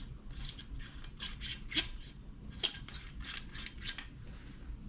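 Threaded cap of an aluminium tactical flashlight being unscrewed by hand, the threads rasping in a quick run of short strokes, two or three a second, with two sharper clicks about two and three seconds in.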